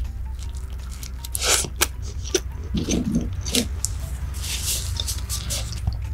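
Close-miked wet chewing and lip smacks of someone eating, with a few separate squelches and clicks.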